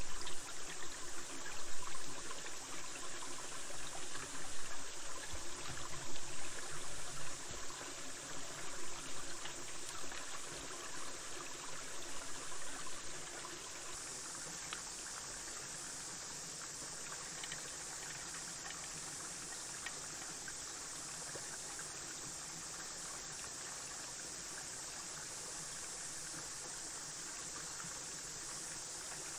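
Small forest stream running over stones. For roughly the first half there is close, uneven gurgling and splashing as a metal water bottle is filled in the stream. After that comes a steady, quieter rush of running water.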